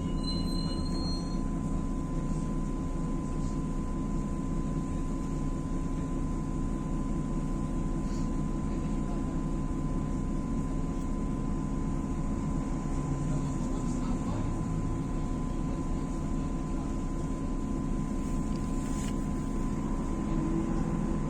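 Inside a MAZ-105 articulated bus on the move: steady engine and road noise with a constant thin high whine. A few short electronic beeps sound in the first second.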